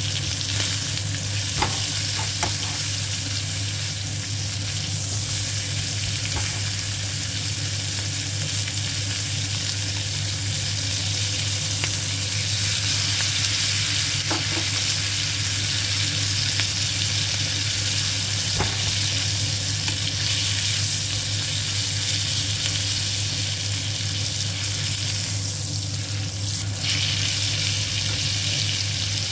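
Minute steak frying in a hot pan: a steady sizzle with a few faint clicks, over a steady low hum.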